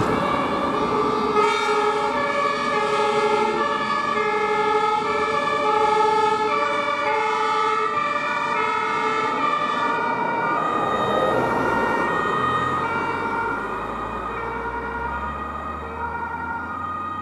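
German two-tone sirens (Martinshorn) of a fire brigade convoy of fire engines and an ambulance, several sounding at once and out of step with each other, over vehicle engine noise. They grow fainter over the last few seconds as the convoy drives away.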